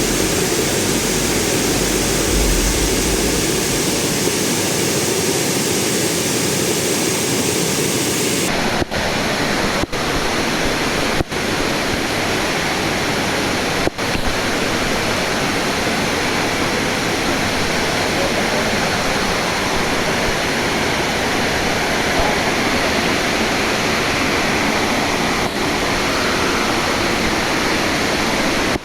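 Steady, loud rush of a waterfall, with no pitch or rhythm to it. The sound changes abruptly about eight seconds in and dips briefly a few times after that.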